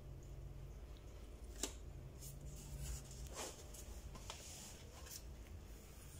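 Faint, steady low hum with a few light clicks and rustles scattered through it.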